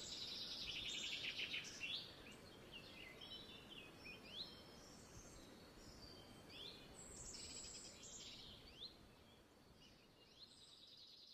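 Faint birdsong: several birds chirping and trilling in short rising whistles, over a soft background hiss.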